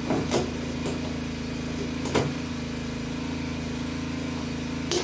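Portable generator engine running steadily, with a few short sharp knocks of metal being handled.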